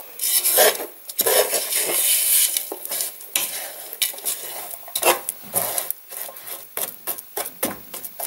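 Metal spoon stirring and scraping melting sugar in a stainless steel pot, grating over lumps of sugar that have not yet dissolved. It scrapes continuously at first, then breaks into quicker separate strokes, about three a second, from about halfway through.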